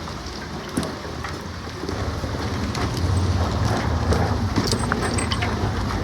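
Motorcycle engine running at idle, its low hum growing louder about two seconds in, with rain ticking and scattered clicks around it.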